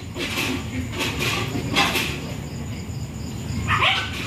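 A Japanese Spitz struggling while held down, making short scuffling, rustling bursts, with a brief whimper near the end.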